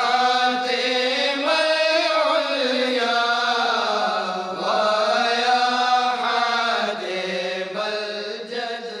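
A voice chanting an Arabic marsiya, an elegy, melodically, in long held notes that slide up and down in pitch, phrase after phrase.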